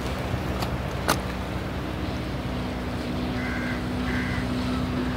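Steady low engine hum with a sharp click about a second in and two short high chirps around three and a half and four seconds.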